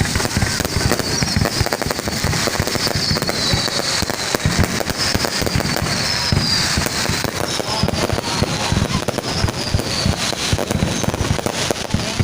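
Fireworks going off without a break: a dense, steady crackle of bangs and pops, with several high whistles over it that fall in pitch.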